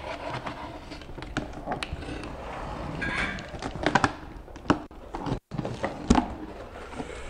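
Cardboard boxes and foam packing being handled: scattered rustling and scraping with a few light knocks.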